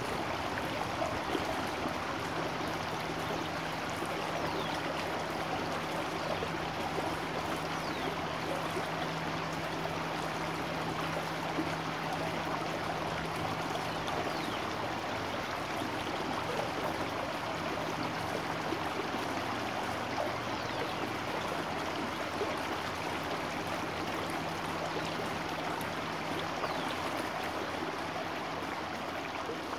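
Small stream swollen by rain, its water rushing and burbling steadily over a low drop.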